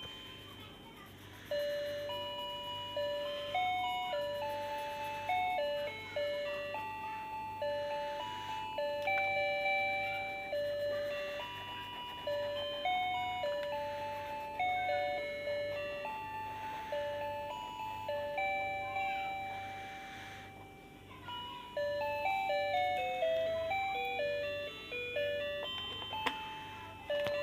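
A simple tinkling melody of bell-like single notes, each struck and fading, with short breaks about a second in and about twenty seconds in.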